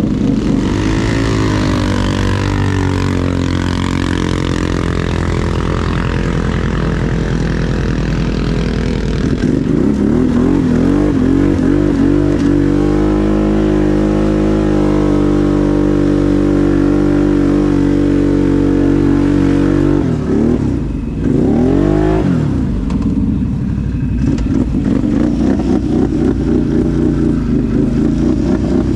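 ATV engine running loud and steady, revving up and down as it is ridden. Its pitch climbs and falls near the start and again about a third of the way in, and it briefly drops off and picks back up about two-thirds through.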